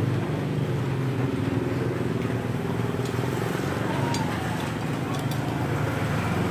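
Steady motor hum with a few light clicks.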